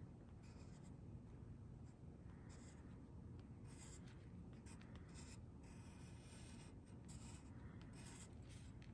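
Pencil scratching on paper in faint, irregular short strokes, about one or two a second, as lettering is outlined and shaded.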